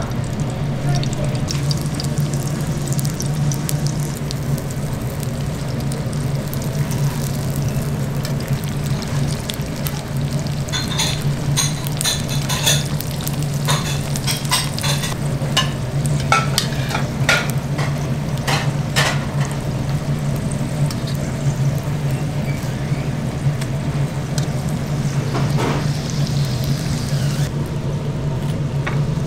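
Dumplings shallow-frying in hot oil in a steel pan, sizzling steadily, with a run of sharp pops and crackles in the middle stretch. A steady low hum runs underneath.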